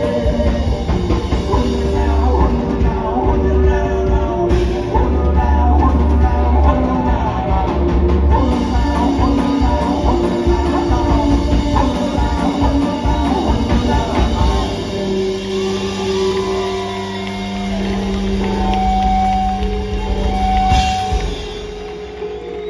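Live band playing loudly with drum kit, guitar and sung vocals. About fifteen seconds in the drums drop out and the band holds a few long sustained notes as the song draws to its close.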